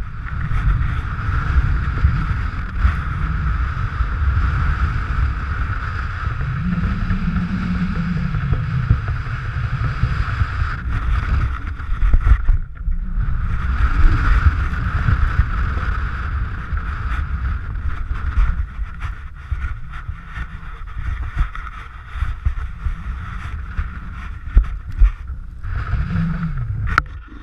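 Wind rushing over the microphone while skiing downhill, with the steady hiss of skis sliding over packed snow. It drops out briefly about halfway and eases off toward the end as the skier slows.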